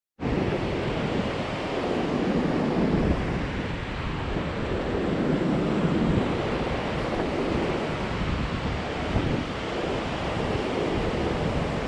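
Pacific Ocean surf: a steady roar of breaking waves that swells and eases, with wind rumbling on the microphone.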